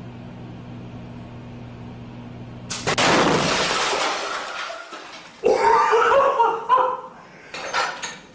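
Microwave oven running with a steady hum; about three seconds in, the box of wine inside bursts with a sudden loud bang and a rush of noise lasting about a second.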